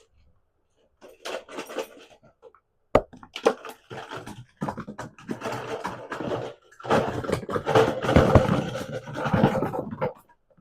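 Plastic packaging crinkling and rustling as a small candy toy is handled and unwrapped. There is a sharp knock about three seconds in, and the crinkling grows busier and louder towards the end.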